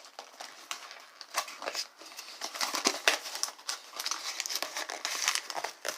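Packaging crinkling and rustling as it is handled, with scattered sharp clicks.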